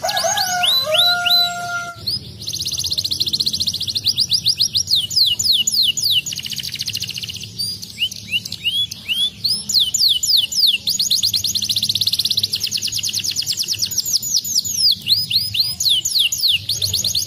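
Canary singing: long, fast, high-pitched trills that alternate with slower runs of downward-sliding chirps, broken by a short pause in the middle. In the first two seconds a few lower, held whistled notes sound under the trills.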